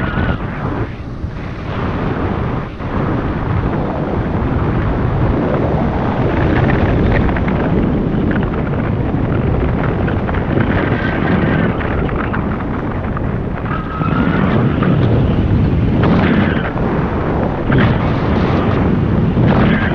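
Loud, gusty wind buffeting the action camera's microphone during flight under a paraglider wing, swelling louder about two-thirds of the way through.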